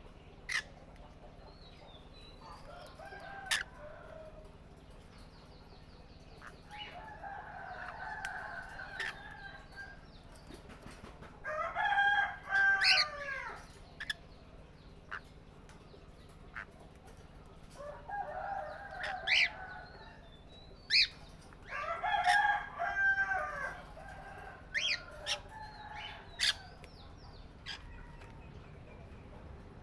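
Birds calling: several drawn-out calls of a second or two each, repeated every few seconds, with short sharp chirps in between.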